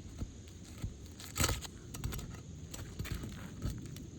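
Brittle asphalt roof shingle being pried up with a tool slid under its tab: scattered scraping and crackling, with one louder crack about a second and a half in, as the shingle tears instead of unsealing, a sign of how thin and brittle the aged shingles are.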